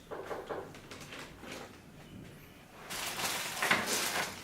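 Rustling and small clicks of a car stereo wiring harness and its packaging being handled, louder from about three seconds in.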